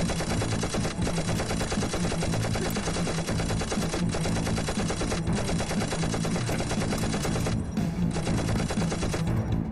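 Machine gun firing in long rapid automatic bursts, with a few brief breaks between bursts.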